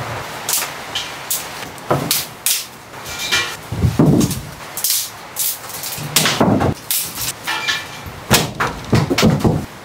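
Wooden sticks and branches knocking, cracking and clattering on a plank floor and stone hearth as kindling is gathered and laid for a fire: a long irregular run of sharp knocks.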